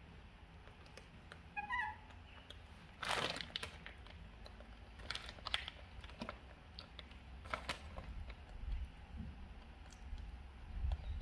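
Thin plastic bread wrapper crinkling and rustling as a baby macaque handles it, in several short bursts, the loudest about three seconds in.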